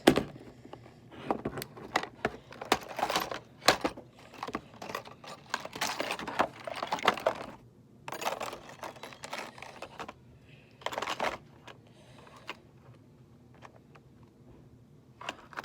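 Ozark Trail survival kit being opened by hand: a dense run of clicks, crinkles and rustles from its packaging over the first eight seconds, then sparser handling sounds.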